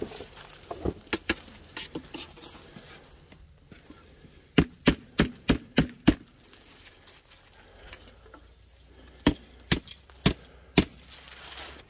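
A series of sharp knocks in groups: one at the start, a few about a second in, a quick run of six at about three a second in the middle, and four more near the end.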